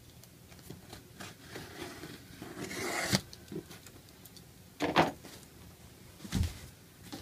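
A cardboard shipping box being handled: packing tape rasps as it is pulled from the box, building for a second or so. Then come a few sharp knocks, and a low thump as the box is turned over on the table.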